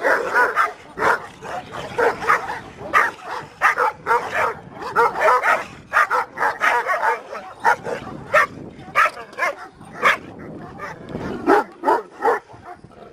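Several Kangal shepherd dogs barking over one another in quick, overlapping barks, thinning out and quieter in the last few seconds.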